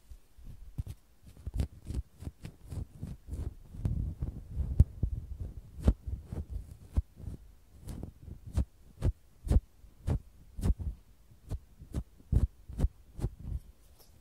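White down-feather puff on a bamboo ear pick (bonten) brushed and pressed over the microphones. It makes irregular muffled rustling thumps, about two a second.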